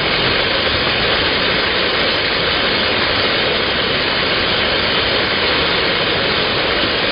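Waterfall pouring close by: a loud, steady rush of falling water with no change in level.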